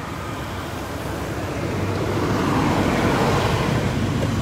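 Road traffic noise: a steady rushing that swells from about a second and a half in, as of a vehicle passing, and stays loud.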